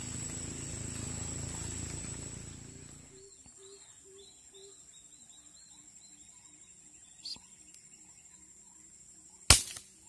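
A single sharp crack of a Sharp Tiger multi-pump air rifle firing, about nine and a half seconds in. Before it, rustling handling noise for the first three seconds, then a faint rhythmic chirping in the background.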